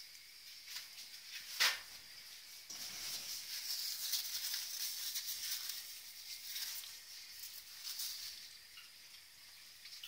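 Faint hiss with scattered small ticks from a double boiler on a gas stove, the water beneath heating to melt chocolate. The hiss swells for a few seconds in the middle, and there is one sharper click about a second and a half in.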